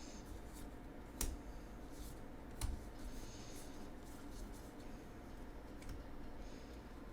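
Magic: The Gathering cards and booster pack being handled: faint rubbing and sliding, with two sharp taps, one about a second in and one near three seconds.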